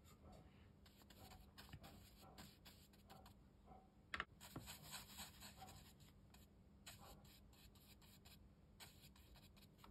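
Near silence, with faint scattered clicks and small handling sounds and one sharper tick about four seconds in. Toward the end comes the faint sound of a watercolour brush working paint onto rough cotton-rag paper.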